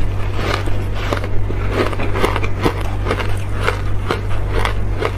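Crunching of a block of refrozen ice being bitten and chewed: an irregular run of sharp cracks and crackles, several a second. The ice is thickly coated in matcha powder.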